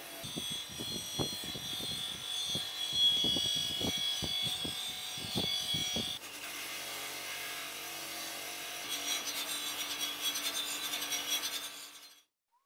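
Wagner cast iron cornbread pan ground against a spinning abrasive wheel, stripping it to bare metal. For the first six seconds a steady high whine runs with irregular scraping knocks as the ridged pan is worked across the wheel. After that it turns to a steadier, rougher grinding, then cuts off suddenly near the end.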